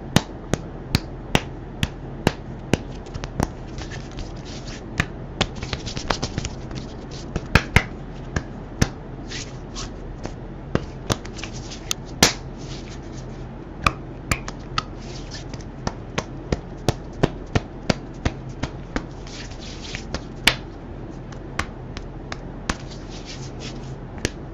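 Hands pressing and kneading clear slime, making irregular sharp pops and clicks, one or two a second, over a faint steady low hum.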